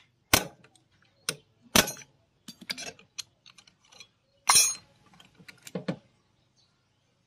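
Sharp metallic clanks and clinks of steel tools and the magneto flywheel rotor as the rotor is worked off a motorcycle engine's crankshaft with a Y-shaped holder and puller. There are about five separate clanks, the loudest and longest-ringing about four and a half seconds in.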